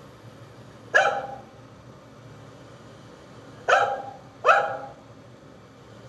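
A white spitz-type dog barking three times: one bark about a second in, then two quick barks together a few seconds later. It is barking to be taken for a walk.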